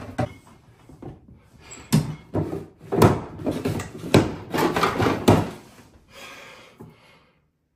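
Cabinet doors and drawers being opened and shut while someone rummages through them: a series of sharp knocks and clatters with scraping in between, growing quieter near the end.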